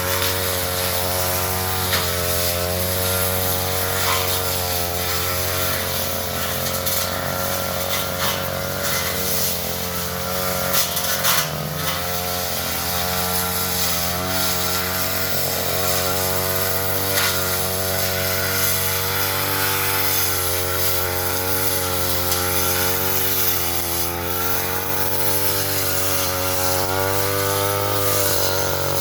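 Two-stroke brush cutter running steadily while cutting undergrowth, its engine speed wavering slightly under load, with a few sharp ticks.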